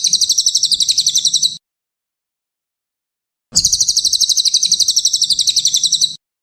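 Small songbird's rapid high trill, a fast even run of about a dozen chirps a second, in two bursts: the first breaks off about one and a half seconds in, and the second starts about two seconds later and runs nearly to the end.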